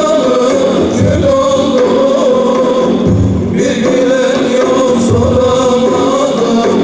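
Male vocal group singing an ilahi in sustained, wavering notes, over large frame drums beaten about once a second.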